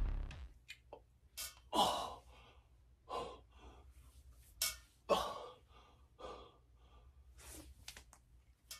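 A man's hard breathing under exertion during a set of squats: short, sharp exhales and sighs every second or so.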